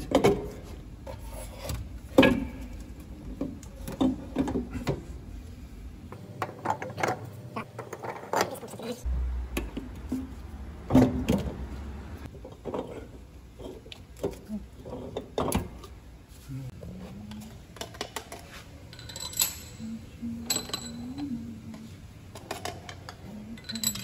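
Irregular metallic clinks, taps and knocks of hand tools and engine parts being handled during truck engine assembly, with louder knocks about two seconds in and again around eleven seconds.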